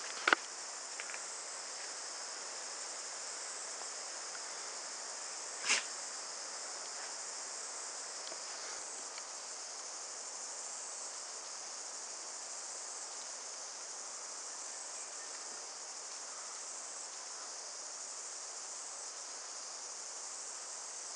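Steady high-pitched chorus of insects in the bush. It is broken twice by a short sharp sound, a loud one just after the start and another about five seconds later.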